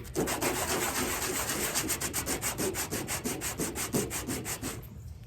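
Hand sanding of small cast pieces: sandpaper rubbing in quick back-and-forth strokes, about six a second, stopping shortly before the end.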